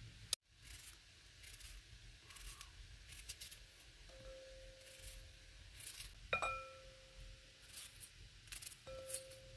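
Kitchen knife cutting through a raw onion in short, crisp strokes. About six seconds in, a sharp clink rings briefly, as of a piece falling against the glass bowl below.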